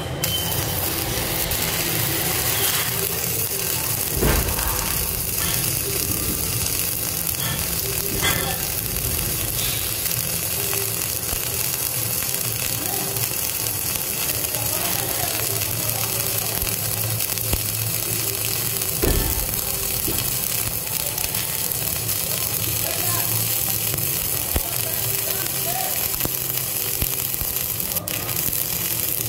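Self-shielded flux-core arc welding with 5/64-inch Lincoln NR-305 wire at about 36 volts: the arc is struck at the very start and holds a steady, loud crackle and sizzle. A few dull thumps come through it, about 4, 8 and 19 seconds in.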